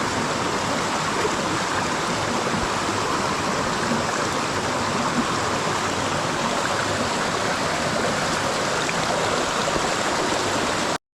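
Mountain stream water rushing: a steady, unbroken wash that cuts off abruptly at the very end.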